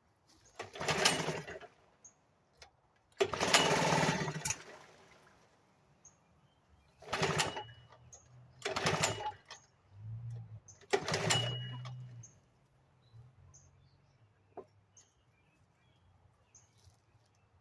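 1975 Sears Gamefisher two-stroke outboard motor being pull-started again and again, firing for a second or two each time and then dying away, about six tries. The owner suspects it has too little gas in it.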